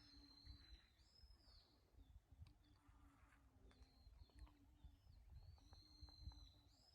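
Faint bird song: a wild bird repeating short high whistled phrases, some held and some bending in pitch, over a low rumble.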